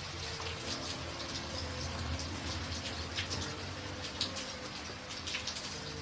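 Steady rain, with single drops now and then striking close by as sharp clicks, over a steady low rumble.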